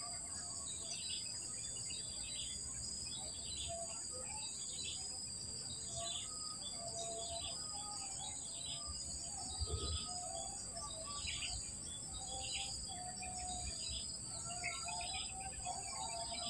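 Steady high-pitched shrilling of insects, with a bird repeating a short falling call about once a second and low wind rumble on the microphone, which bumps once about ten seconds in.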